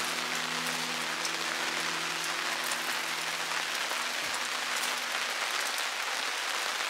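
Rain falling steadily on a surface, an even patter of many small drops, with faint background music fading out in the first few seconds.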